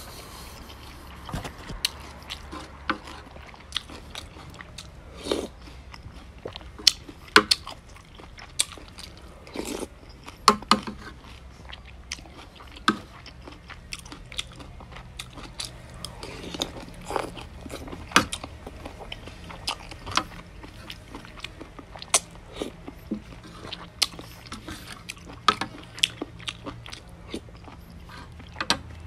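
Close-up eating sounds: a person chewing mouthfuls of noodle soup, with sharp, irregular clicks of chopsticks and a spoon against the plate and bowl.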